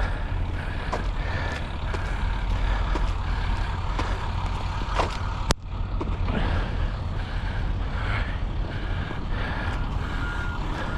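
A vehicle's reversing alarm beeping in short, evenly spaced beeps over a low, steady rumble, with one sharp click about halfway through.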